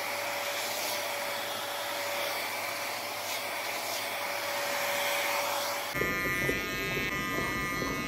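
Rusk Super Freak 2000-watt hair dryer blowing steadily, with a thin steady whine over the rush of air. About six seconds in it gives way suddenly to the buzz of electric hair clippers.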